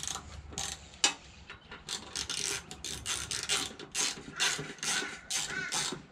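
Hand ratchet clicking in rapid runs as the sump (oil pan) bolts are run down lightly, with one sharper click about a second in.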